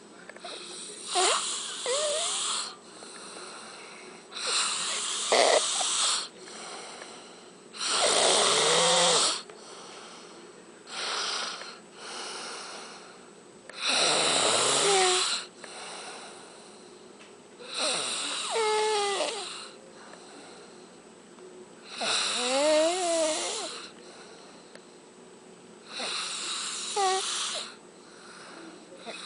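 A man snoring, about eight loud snores coming roughly every three to four seconds, with quieter breathing between them. Several snores have a wavering whistle running through them.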